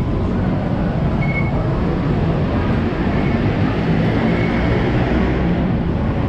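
Steady low rumble and hubbub of a train station concourse, with a short electronic beep from a fare gate about a second in.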